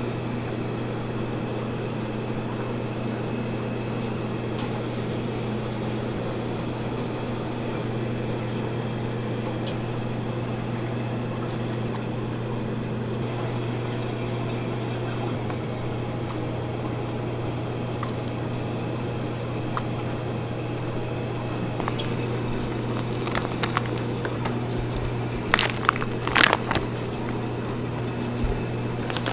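Steady low hum of kitchen equipment, with a few light clicks and knocks of handling near the end.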